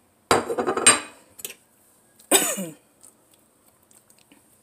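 A slow cooker's stoneware crock being shaken to settle its contents: a clatter lasting under a second, then a shorter one about two seconds later.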